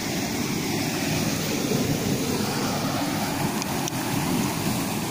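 Steady rushing of flowing river water, an even noise that holds at one level throughout.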